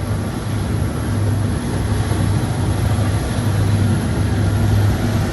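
A heavy engine running steadily, with a loud, even low hum.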